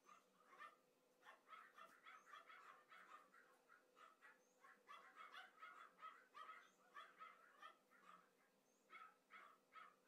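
Small Pomeranian dogs play-fighting, giving faint, quick strings of yaps and yips.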